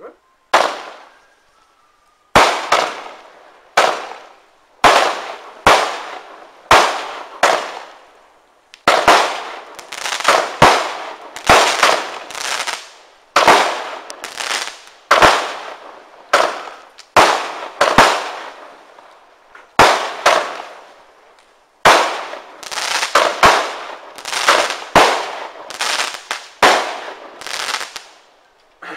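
A 16-shot consumer fireworks cake, Exclusive Fireworks' Cosmic Asteroids Blitz, firing shot after shot. It makes a long run of sharp bangs about one a second, each fading out over about a second as the shells launch and burst.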